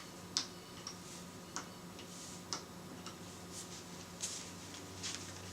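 Front-panel buttons of a Tektronix MDO 3104 oscilloscope being pressed: about six faint, separate clicks at uneven intervals, the first the loudest, over a low steady hum.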